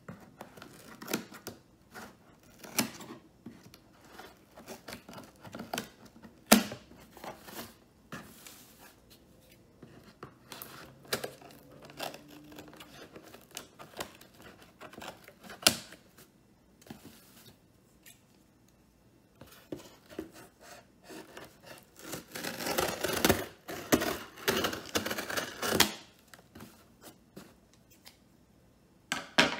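Scissors snipping and slicing through packing tape on a cardboard box: scattered sharp clicks and scrapes, then a louder, denser few seconds of cutting and tearing tape past the two-thirds mark.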